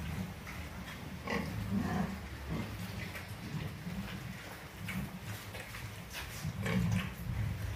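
F1 crossbred pigs grunting at close range in a crowded pen, with louder grunts about a second and a half in and again near the end.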